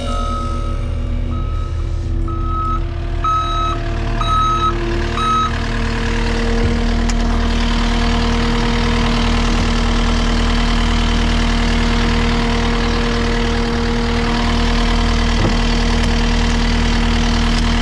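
Cat compact track loader's backup alarm beeping six times, about once a second, over its diesel engine, which then runs on steadily after the beeping stops.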